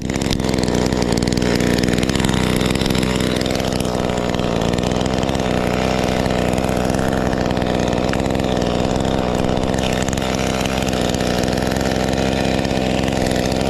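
Cheap Chinese knockoff of an Echo 2511T two-stroke top-handle chainsaw, idling steadily.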